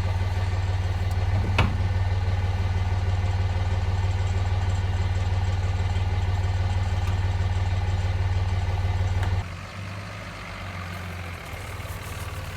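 An engine idling steadily with a low hum, with one sharp click about one and a half seconds in. A little over nine seconds in it drops to a much quieter, uneven hum.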